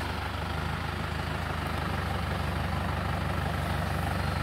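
Off-road 4x4's engine running steadily at low revs, a low even hum, as the vehicle crawls slowly down a rutted dirt trail.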